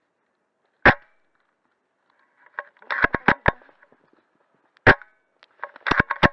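AAC T10 bolt-action airsoft sniper rifle firing two sharp shots about four seconds apart. Each shot is followed a second or so later by a quick run of metallic clicks as the bolt is cycled to cock and chamber the next BB.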